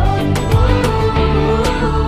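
Background pop song with a steady drum beat and sustained instrumental notes, in a short break between sung lines.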